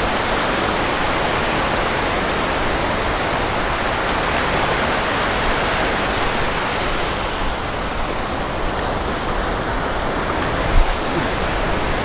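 Small shore-break waves breaking and washing up the sand at the waterline: a steady rushing hiss of surf, with one brief knock a little before the end.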